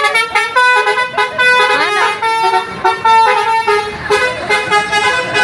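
Bus 'telolet' musical air horn playing a fast tune of short stepped notes.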